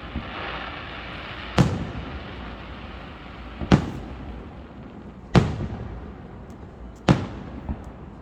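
Fireworks display: four loud booms of aerial shells bursting, about two seconds apart, each trailing off, with a smaller pop near the end.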